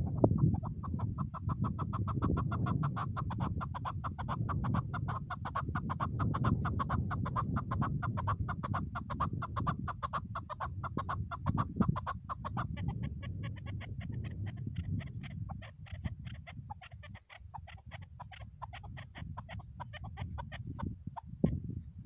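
Chukar partridge calling: a long, rapid run of clucking notes that shifts to a different rhythm about halfway through and stops shortly before the end, over a steady low rumble.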